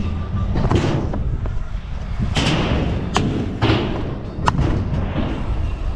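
Freestyle kick scooter rolling on concrete with a steady low rumble. It clacks and thumps several times in the middle of the stretch as it rides over a wooden launch ramp and comes back down.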